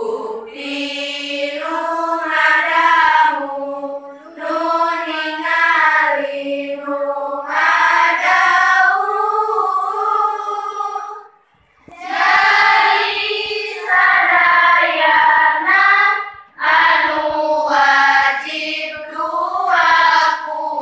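A class of schoolgirls chanting a nadom (rhymed Arabic verse on the articles of faith) in unison, unaccompanied. It is sung in melodic phrases with short breath pauses between lines.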